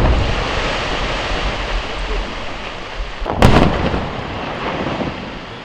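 Rock blasting in an open-cast mine: the low rumble of a blast just set off, then a second sharp blast about three and a half seconds in, its rumble fading away.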